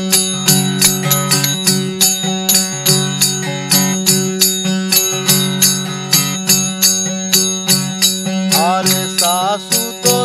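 Wooden kartal clappers fitted with small metal cymbals, struck in a steady jingling rhythm of about four strokes a second over the steady drone of a tambura. Near the end a wavering melodic line comes in briefly.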